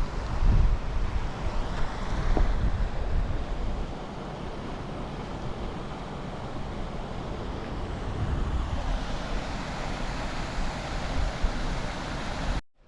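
Steady rush of water, with gusts of wind buffeting the microphone for the first few seconds; the sound cuts off abruptly near the end.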